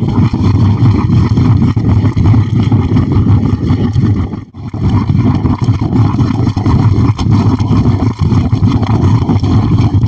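Geothermal steam vent (fumarole) roaring right at the microphone, a loud, rough, low rumble that dips briefly about halfway through.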